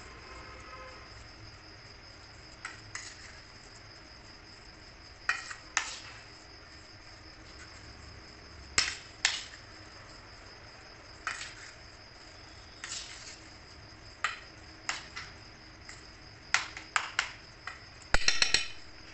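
Metal spoon scraping and clinking against a stainless steel bowl while mixing a thick, mashed pea kabab mixture, in irregular knocks with a quick flurry of them near the end. A steady high-pitched whine runs underneath.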